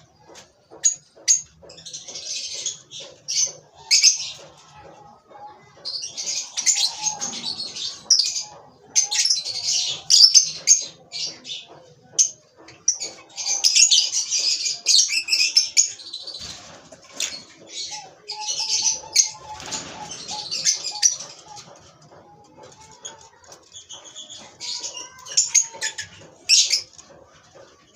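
Lovebird chicks making raspy, hissing bird sounds in repeated bursts of a second or two, with short clicks between the bursts.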